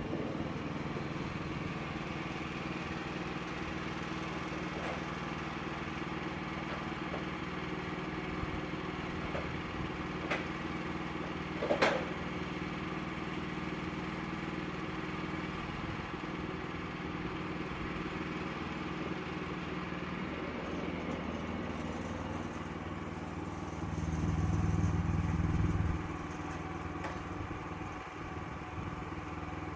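Sawmill engine running steadily at an even pitch, with a sharp knock about twelve seconds in and a louder low rumble for about two seconds near the end.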